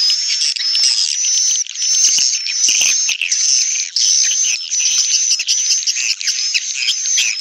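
Recorded swiftlet calls used as a bird-house lure: a dense, unbroken stream of high chirps and twitters, with a bright whistled note repeating every half second or so. It is a calling track mixed with a roosting track, the playback swiftlet farmers use to draw birds into a nesting house.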